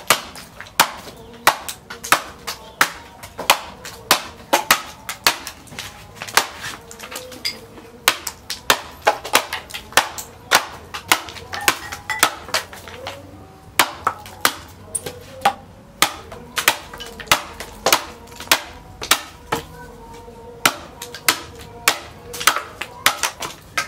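Machete blade chopping through a green stalk into a wooden chopping block, sharp repeated chops at about two a second with a few short pauses.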